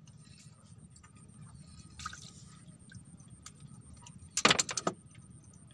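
Fishing tackle being handled by hand: a quick clatter of several sharp clicks about four and a half seconds in, over a steady low rumble.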